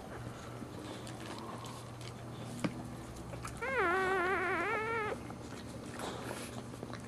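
Newborn Boxer puppy giving one wavering, meow-like cry, about a second and a half long, a little past the middle.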